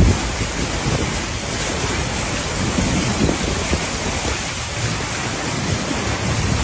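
Steady, loud rush of floodwater, with wind buffeting the microphone.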